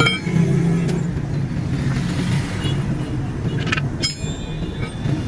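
A motor vehicle engine running with a steady low rumble, with a brief cluster of metallic clinks about four seconds in.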